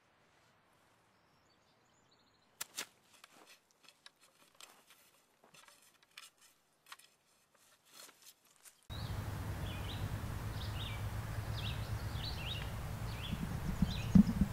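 Irregular scrapes and knocks of a steel hoe blade cutting through dry, stony soil, starting about two and a half seconds in. About nine seconds in the sound changes abruptly to a steady low outdoor noise with short bird chirps, and there is a single thump near the end.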